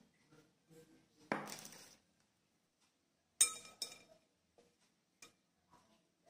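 Stainless-steel mesh sieve and glass mixing bowl knocking together: a sharp, ringing clink about three and a half seconds in, after a brief scrape about a second in, then a few light taps.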